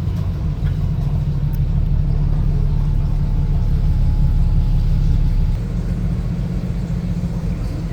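Steady low rumble, easing slightly about five and a half seconds in.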